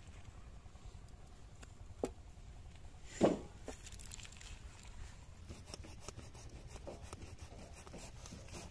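Raw chicken being cut and handled on a wooden chopping block: faint knife and handling clicks, with a small knock about two seconds in and one sharp, much louder knock just after three seconds.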